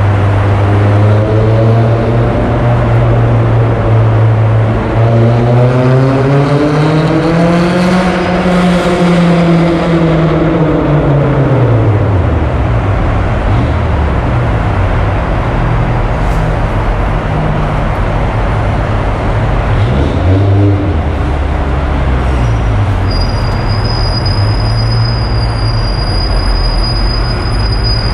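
Honda S2000's inline-four engine heard from inside the cabin, cruising steadily, then revving up over a few seconds and dropping back, before cruising on with road noise. A thin high steady tone comes in near the end.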